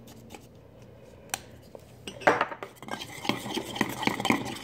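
A metal spoon stirring a shampoo mixture in a stainless steel bowl, clinking and scraping rapidly against the bowl's sides. The stirring starts about halfway through.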